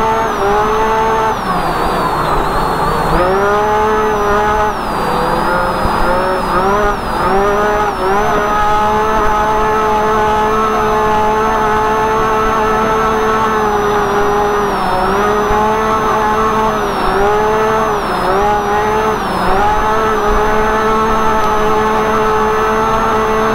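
UTV engine running under way at a high, steady pitch, heard from inside the cab. The engine speed dips briefly and comes back up many times, in a cluster over the first eight seconds and again between about 14 and 20 seconds.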